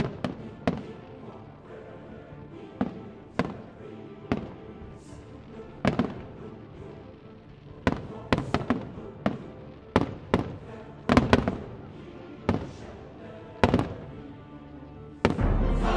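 Aerial firework shells bursting: a string of sharp bangs, sometimes two or three in quick succession, most closely packed about halfway through, over background music. Near the end the music suddenly gets much louder.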